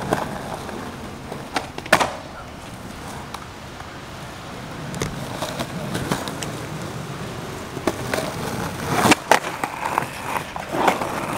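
Skateboard wheels rolling over a concrete sidewalk with a steady rumble, broken by a few sharp clacks of the board: one about two seconds in and two close together around nine seconds.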